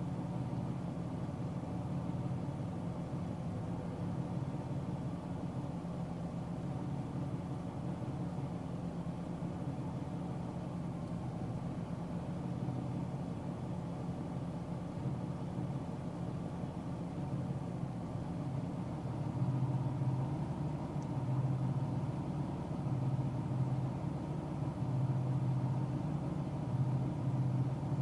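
Steady road drone inside a car cruising on the highway: engine and tyre hum, louder and more uneven in the last third.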